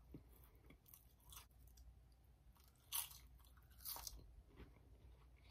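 Faint chewing and crunching of a thick, crispy spicy seaweed snack, with a few sharp crunches; the loudest comes about three seconds in and another about a second later.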